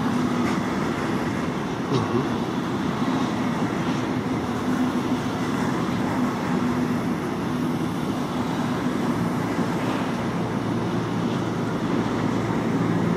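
Intermodal freight train of pocket wagons carrying lorry semitrailers rolling past close by: a steady rumble of wheels on rails with a constant low hum.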